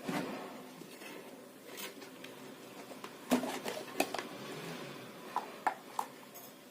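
Handling noises with several sharp clicks and knocks: a loud pair near the middle and three quicker clicks near the end.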